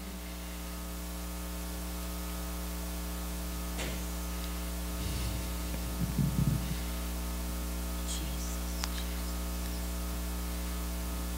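Steady electrical mains hum with many evenly spaced overtones, slowly getting louder over the first few seconds. A few faint clicks and a brief low rumble about halfway through sit on top of it.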